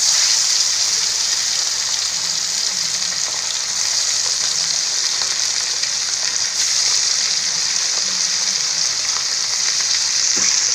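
Sardines deep-frying in hot oil in a wok: a steady, dense sizzle of bubbling oil.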